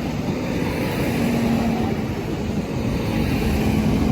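Steady vehicle noise: an engine running with a low, steady hum.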